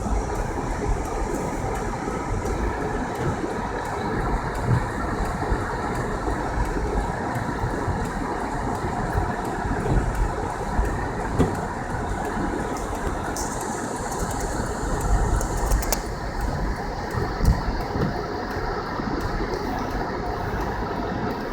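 Car driving on a snowy road: a steady low rumble of tyres and engine, with scattered small clicks and a brief higher hiss about two-thirds of the way through.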